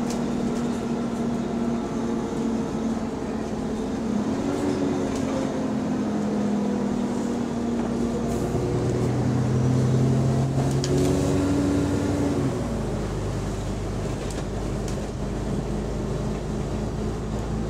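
Double-decker bus under way, heard from inside on the upper deck: a steady hum from its engine and cooling fan. The hum's pitch rises and falls, and a deeper drone joins for a few seconds around the middle, with a few faint rattles.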